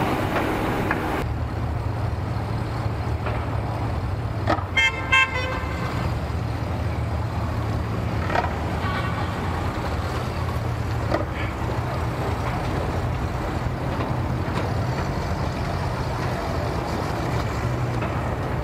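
Bass boat outboard motor idling low and steady as the boat creeps in to the dock. About five seconds in there is a short, loud, pulsing honk.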